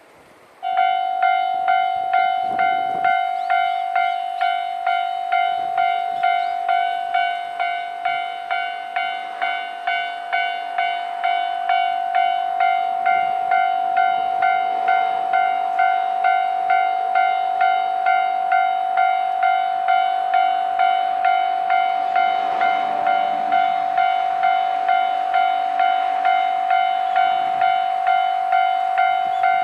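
Japanese level-crossing warning bell, the electronic ding-ding kind, starting suddenly less than a second in and ringing steadily in an even rhythm a little faster than once a second. A brief swell of lower noise comes about two-thirds of the way through.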